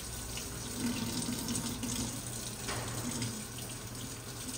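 Water running steadily from a tap into a sink while plastic forks are washed by hand.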